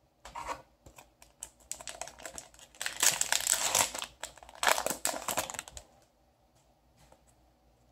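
Foil booster-pack wrapper of trading cards crinkling and tearing as it is ripped open by hand. The crackling is loudest twice near the middle and stops about six seconds in.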